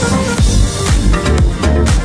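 Upbeat background music with a steady drum beat and heavy bass; a cymbal-like wash swells at the start.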